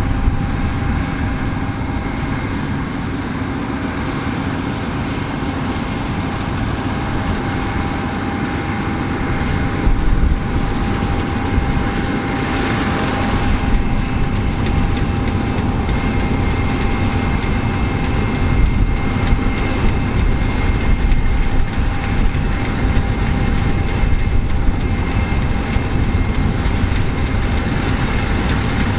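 New Holland CR11 combine harvester running steadily while harvesting barley: a continuous engine and machinery noise with a couple of steady whining tones over it.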